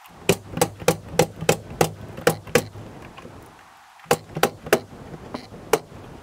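Pneumatic nail gun firing nails into lap siding planks: a quick run of eight sharp shots about three a second, a pause of over a second, then three more in quick succession and one last shot near the end.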